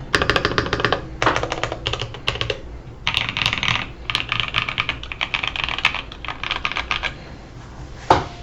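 Typing on a Satisfaction 75 custom mechanical keyboard with broken-in, lubed NovelKeys Blue Cream linear switches, O-ring-dampened, under cadet-profile keycaps: fast bursts of keystroke clacks with short pauses. The typing stops about seven seconds in, and a single short thump comes near the end.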